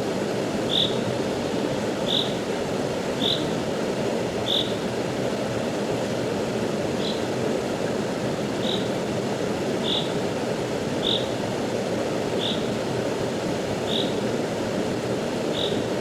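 Rushing stream water, a steady hiss, with a short high chirping call repeating about once a second over it and a brief pause midway.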